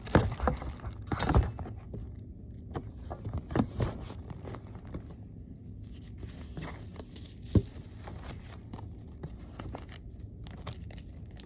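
Packaging being handled: crinkling and rustling with scattered knocks and clicks as items are packed into a box, busiest in the first couple of seconds, with one sharp knock about seven and a half seconds in.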